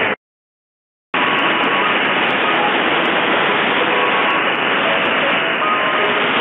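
Shortwave AM receiver audio on 9.750 MHz, mostly dense static hiss with faint short whistling tones buried in it, the wanted signal almost lost in the noise. The audio drops out completely for about a second just after the start, then the static comes back.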